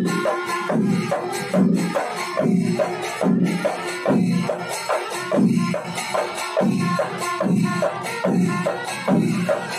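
Music with a steady, evenly spaced drumbeat and held tones above it.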